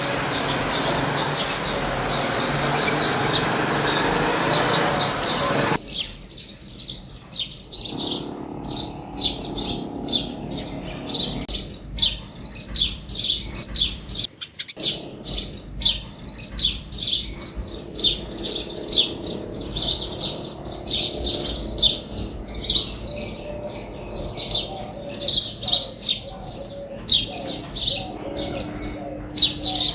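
Many small birds chirping rapidly and continuously in a high, busy chorus. For the first six seconds a steady rushing noise runs underneath, then cuts off suddenly.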